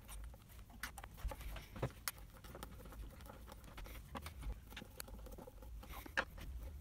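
Hand screwdriver driving small screws through metal cranked hinges into a cupboard door: faint, scattered clicks and scrapes of the tip and of the hinge and door being handled.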